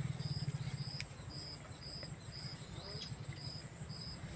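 Cricket chirping in short, evenly spaced pulses about twice a second, over a steady high-pitched insect whine. Under it is a low rumble that is loudest in the first second, and a single click comes about a second in.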